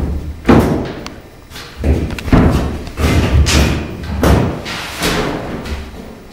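A string of heavy thuds and bangs, about nine in six seconds at an uneven pace, each with an echoing tail, from a long mop handle being swung and struck hard in a cellar. The blows grow weaker near the end.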